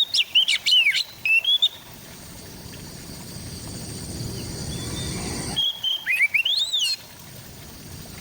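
Oriental magpie-robin (kacer) singing: a burst of quick, varied whistled notes sweeping up and down at the start, a pause, then a second burst about six seconds in. A low rumble swells in the background between the phrases.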